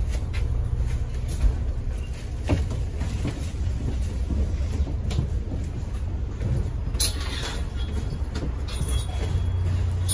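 London double-decker bus running, heard from inside on the upper deck: a steady low rumble of engine and road, with scattered knocks and rattles and a brighter rattle about seven seconds in.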